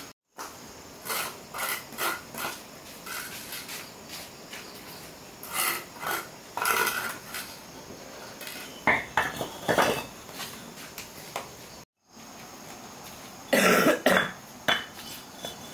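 Scrapes and knocks of a metal tool against a hard surface, in short irregular clusters, loudest about a second and a half before the end; the sound cuts out briefly twice.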